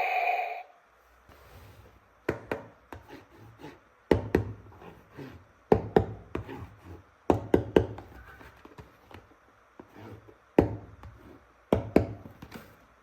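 Hands handling hard plastic toy weapon pieces: irregular clicks, taps and knocks, some in quick double or triple clusters. A brief electronic tone cuts off just after the start.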